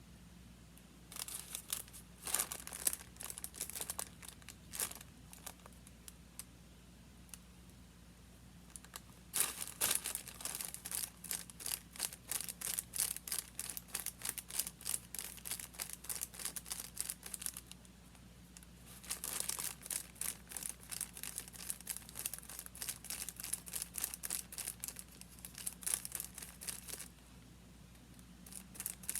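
Paper being handled, crinkling and rustling in three spells of dense crackle with short pauses between.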